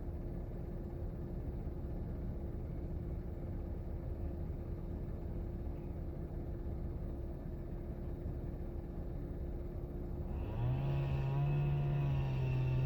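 A low steady rumble, then about ten and a half seconds in an engine note comes in much louder, rises a little and holds steady.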